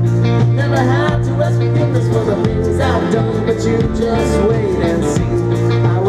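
Live band playing a song, with guitar, sustained low bass notes and drums, and a melody line sliding in pitch on top.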